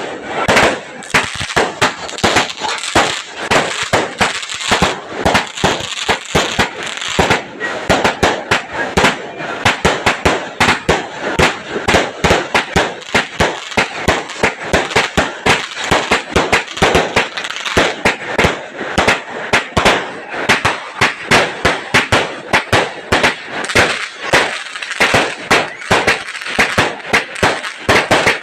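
A 138-shot fireworks cake firing its shots one after another in a rapid, unbroken series, several sharp bangs a second.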